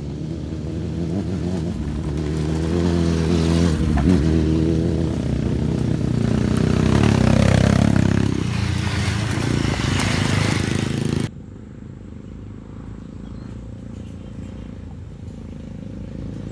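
Off-road motorcycles riding past on a gravel trail. The engines get louder as the bikes approach, are loudest about seven to eight seconds in as they pass close with a dip and rise in pitch, and then after an abrupt cut are heard fainter as more bikes come on from a distance.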